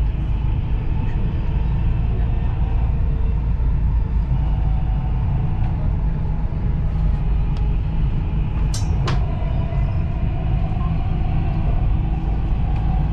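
Dubai Metro Red Line train running along the elevated track, a steady low rumble heard from inside the car. About nine seconds in there is a brief high-pitched sound, and a faint steady whine carries on after it.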